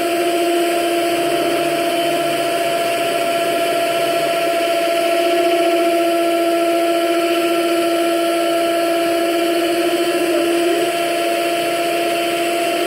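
Electric mixer running steadily at one speed, its motor giving a constant whine, while it beats cake batter.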